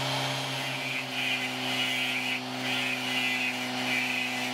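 Dremel-type rotary tool running steadily with a diamond burr, grinding into wet Welsh slate in about four short passes from about a second in, each pass a rasping grind over the motor's hum.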